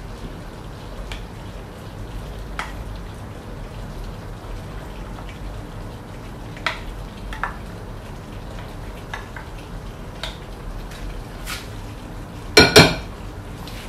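Black slotted spoon scooping chickpeas from a bowl into a pot of stew, with scattered light clicks and taps over the steady bubble of the simmering stew. Near the end, two quick loud knocks of the spoon against the pot.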